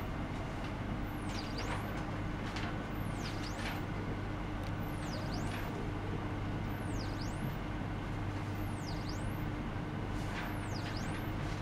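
Steady electrical hum and hiss from ultrasonic test equipment, with a faint high whistle that sweeps down and back up about every two seconds.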